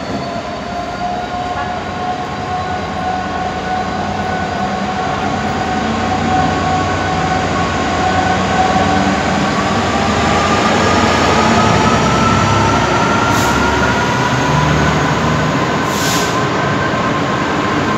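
A pair of Class 66 diesel locomotives moving slowly past, their EMD two-stroke V12 engines running with a low rumble. A whine rises slowly in pitch as they gather speed, and the sound grows loudest about two-thirds of the way through.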